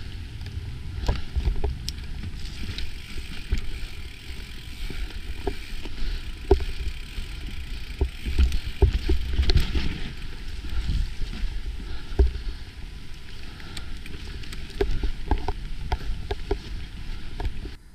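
Mountain bike riding fast down a dirt singletrack: a steady low rumble of tyres and air over the camera, with frequent sharp rattles and knocks from the bike as it goes over bumps.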